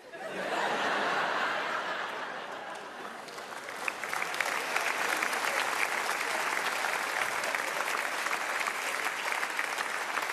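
A large theatre audience bursts into a loud crowd reaction with laughter right at the start, turning into steady, dense applause from about four seconds in.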